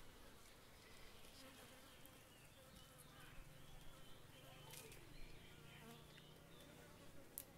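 Near silence with a faint flying insect buzzing low and wavering, clearest from about three seconds in, and a few soft clicks.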